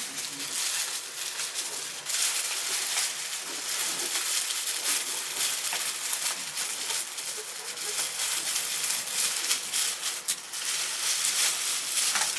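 Continuous crinkling and rustling of something being handled, with many small crackles.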